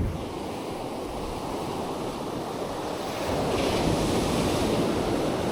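Ocean surf washing onto a beach, swelling louder about three seconds in as a wave breaks, with wind on the microphone.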